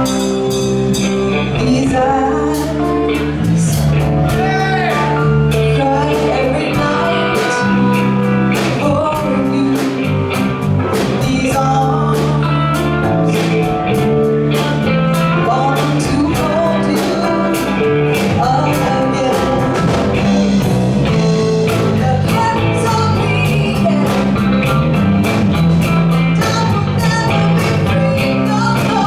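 Live band playing a rock song with a steady drum-kit beat, guitar and bass, and singing.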